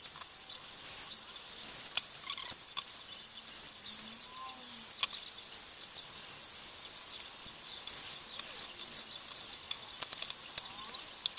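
Scattered light clicks, taps and scrapes of a Prestige induction stove's plastic casing, wiring connectors and coil being handled and fitted back together, over a steady hiss.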